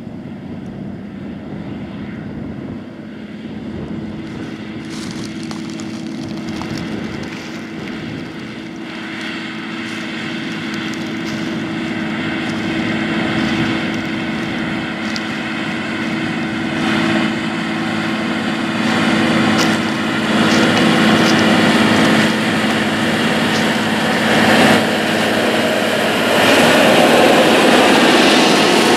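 Case IH 620 Quadtrac's 12-litre six-cylinder diesel engine working under load as the tractor pulls a strip-till bar through corn stalks, growing steadily louder as it approaches. Scattered clicks and rattles are heard over the engine.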